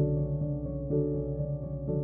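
Background music: soft keyboard chords over a sustained bass, the chord changing about once a second.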